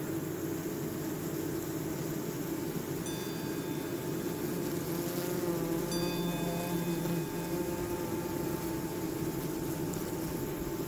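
Layered ambient soundscape: a steady rushing noise bed, with bell-like ringing tones coming in about three seconds in and again about six seconds in, and a wavering hum in the middle.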